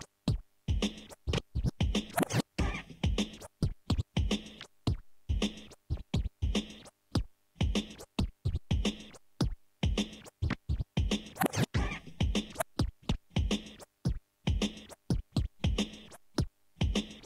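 Vinyl record scratched by hand on a DJ turntable, its drum sounds chopped on and off with the mixer's crossfader into a fast, choppy drum pattern of short hits and scratches separated by sudden silences.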